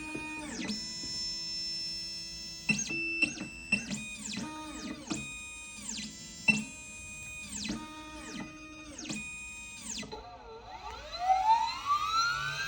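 Synthesizer background music with held notes and sweeping tones, rising in pitch near the end.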